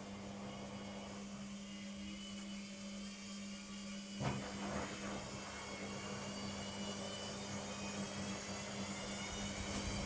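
LOGIK front-loading washing machine's motor running with a steady hum, a single knock about four seconds in, then a whine that rises steadily in pitch as the drum speeds up into the spin.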